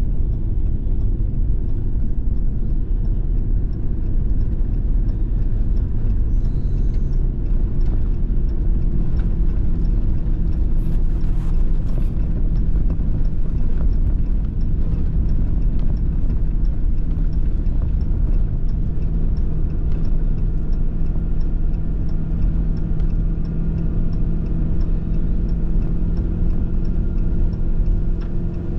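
Steady low rumble of a loaded truck driving at highway speed, heard from inside the cab: engine and tyre noise. A steady engine hum becomes clearer partway through.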